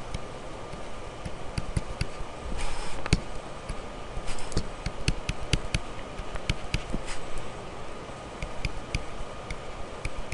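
Stylus tapping and scratching on a pen-tablet surface during handwriting: irregular light clicks, with a short scratchy stroke about three seconds in and another about four and a half seconds in. A faint steady hum runs underneath.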